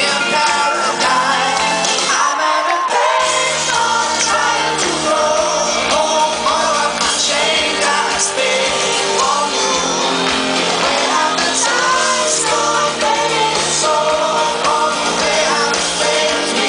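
A pop-rock song with a singer over a band with guitar, loud and continuous; the bass drops out briefly about two seconds in.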